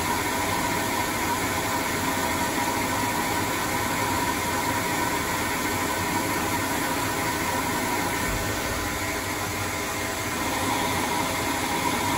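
ProtoTRAK CNC lathe running under power as a carbide insert rough-turns a metal propeller shaft: a steady machine whine over an even hiss of the cut.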